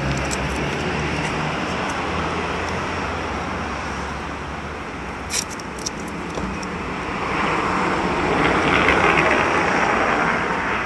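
Background road traffic, with a vehicle passing that swells about seven seconds in and fades near the end. A few sharp clicks come about five seconds in.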